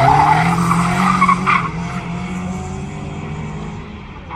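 Rally car engine held at high revs as the car accelerates away out of a bend, its note fading steadily into the distance, with a short sharp crack about a second and a half in.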